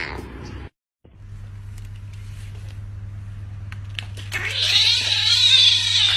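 A kitten's long, drawn-out meow lasting about three seconds, starting past the middle, over a steady low electrical hum. The very start holds the tail of another cat's loud meow, cut off short.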